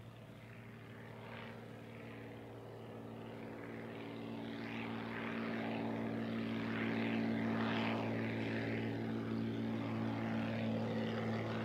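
Fairchild PT-19 trainer's Ranger inline six-cylinder engine and propeller droning steadily in flight. It grows louder over the first seven seconds or so as the plane approaches, then holds steady.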